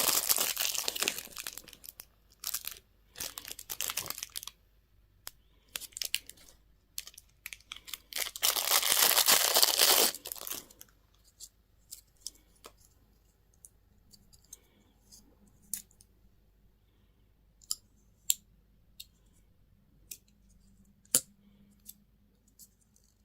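Candy or toy packaging being torn open and crinkled in bursts, loudest about eight to ten seconds in, then a stretch of scattered small clicks and taps.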